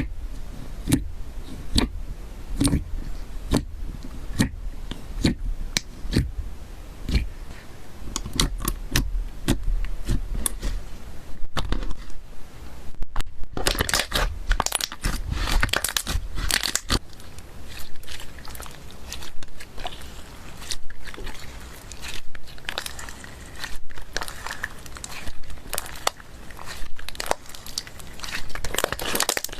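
Slime being squished and stretched by hand, a steady string of sticky clicks and pops as air pockets burst. About halfway through the sound changes to denser, sharper crackling.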